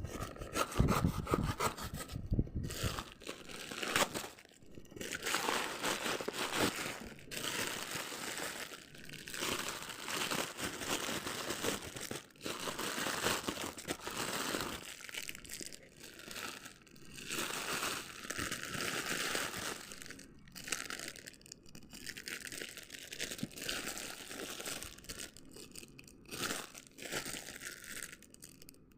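Toy packaging being handled and opened: plastic and card crinkling, crunching and tearing in irregular spells with short pauses between them.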